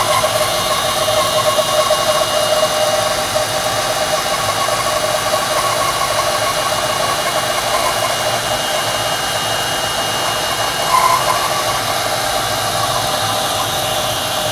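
Bandsaw running with a 3/4-inch blade, slowly resawing a board into thin veneer at a steady feed: an even, unbroken machine sound with the blade working through the wood.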